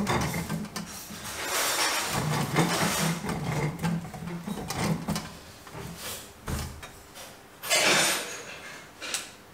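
Irregular scraping and rubbing of a pole-mounted 3D-printed light bulb changer working a bulb into a ceiling socket, with a louder scrape near the end.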